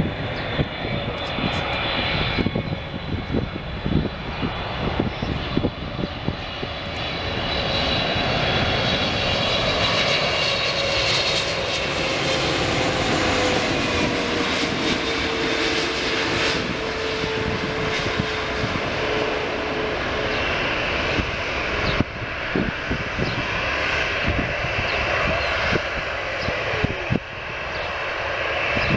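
Emirates Boeing 777's twin jet engines on final approach and landing: steady jet noise with a high whine, and a tone that slowly falls in pitch over about twenty seconds as the plane passes.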